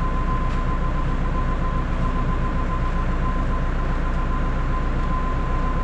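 Tractor engine idling steadily, with a thin, steady high-pitched tone running over it.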